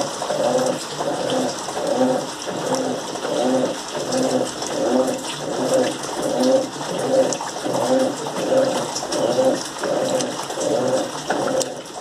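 Electrolux top-loading washing machine agitating a full tub of clothes in water: its motor hums in short, even strokes, a little more than once a second, as the agitator swings back and forth, with water sloshing.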